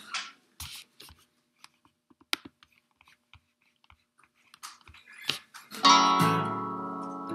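Scattered small clicks and taps as an acoustic guitar is handled and shifted, then about six seconds in a strummed acoustic guitar chord rings out and slowly fades.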